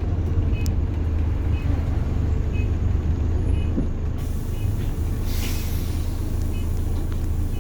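Diesel bus engine running steadily, heard from on board, with a faint short beep repeating about once a second. A brief hiss of air from the bus's air brakes comes about five seconds in.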